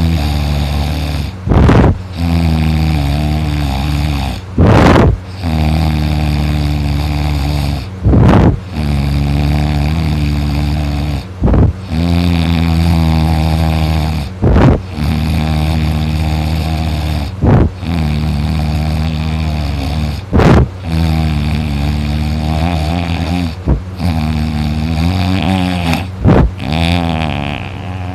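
A man in deep sleep snoring and moaning loudly in a steady breathing rhythm, about one breath every three seconds. Each breath has a short, very loud snore and a long, low moaning drone that wavers slightly in pitch.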